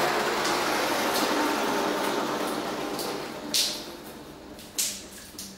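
Water from a leak running and splashing steadily, dying down after about three seconds, followed by three sharp splashes near the end.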